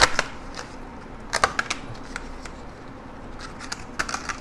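Clear plastic phone-case packaging clicking and crackling as a case is worked out of it by hand, in a few short clusters of sharp clicks.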